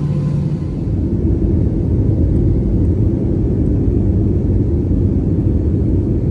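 Jet airliner cabin noise heard from a window seat beside the wing: the engines and airflow make a loud, steady low rumble, with a brief dip about a second in.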